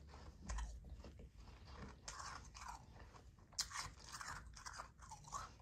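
Person chewing and crunching soft, powdery ice: a run of irregular crisp crunches, with one sharper crunch a little past halfway.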